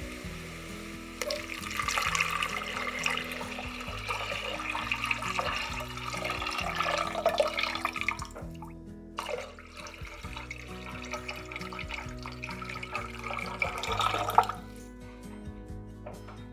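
Liquid poured in a steady stream into a stainless steel pot of vegetables, first broth for several seconds, then after a short break water. The second pour stops abruptly about two seconds before the end.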